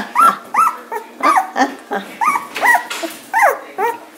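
Newborn beagle puppies, eyes not yet open, squealing and whining in a quick string of short cries, several a second, each rising and falling in pitch, some overlapping.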